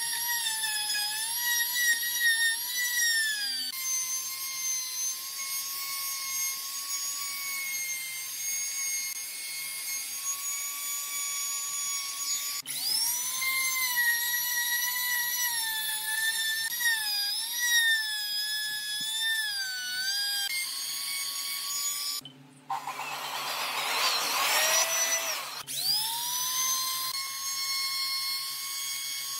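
Handheld trim router running at high speed as its bit cuts recesses into a wooden board. It makes a continuous high whine whose pitch sags and recovers as the bit bites into the wood. A harsher, noisier cutting stretch comes about three quarters of the way through, ending as the motor speeds back up.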